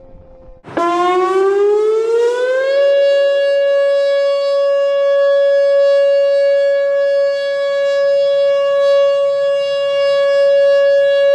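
Outdoor tornado warning siren starting abruptly about a second in, rising quickly in pitch for about two seconds, then holding one steady, loud tone.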